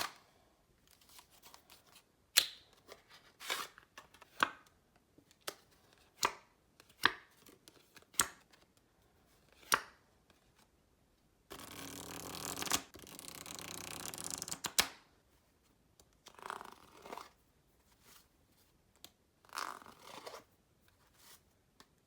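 A deck of Bicycle playing cards handled: a series of sharp snaps and clicks over the first ten seconds or so, then about three seconds of continuous rustling, then two short, softer brushing sounds.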